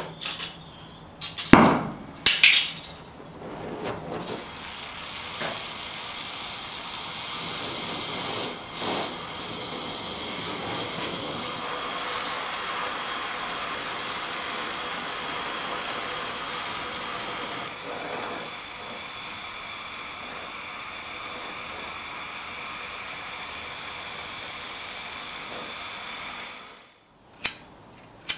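A few sharp metallic clinks, then a gas torch burning with a steady hiss, which stops abruptly near the end.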